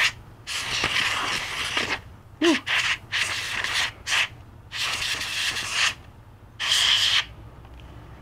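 Can of compressed air (air duster) sprayed in a series of hissing bursts, some brief and some over a second long, blowing dust out of a laptop's cooling fan.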